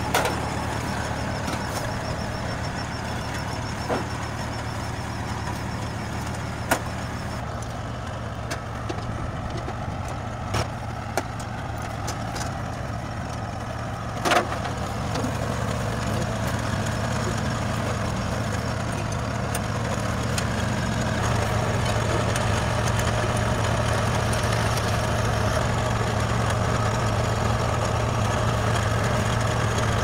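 Kubota combine harvester's engine running steadily at a low, even hum, growing a little louder about two-thirds of the way through. A handful of sharp metallic knocks sound over it, the loudest about halfway through.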